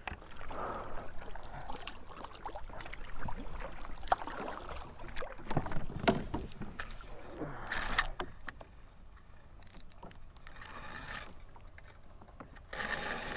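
Water sloshing and splashing around a fishing kayak's hull, with a few sharp knocks and clicks of gear being handled.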